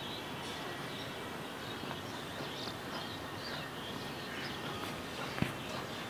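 Steady outdoor background noise with scattered short, high bird chirps, and a single sharp knock about five seconds in.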